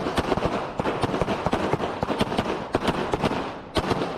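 Pistol gunfire from a firing line of several shooters: sharp overlapping shots, about five a second, with a brief pause near the end before the firing picks up again.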